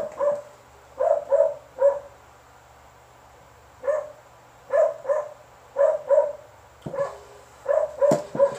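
A dog barking repeatedly, in short runs of two or three sharp barks with brief pauses between.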